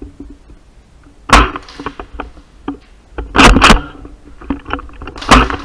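Airsoft guns firing indoors: a single sharp shot about a second in, a quick cluster of shots around three and a half seconds, and another shot near the end, each with a short echo off the room.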